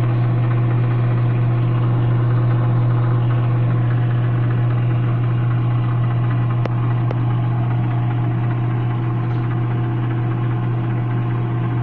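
Microwave oven running while it heats an egg: a loud, steady hum with a strong low drone, switched on just before and running on unchanged.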